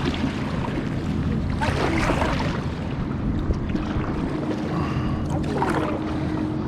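Water sloshing and splashing against a kayak on choppy water, with a steady rumble of wind on the microphone. A faint steady hum joins about four seconds in.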